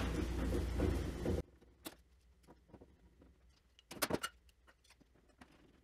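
A dense steady noise that cuts off abruptly about a second and a half in. Then a few sharp clicks and knocks from a metal router-table dust bucket box being handled and turned over on a wooden workbench, the loudest cluster about four seconds in.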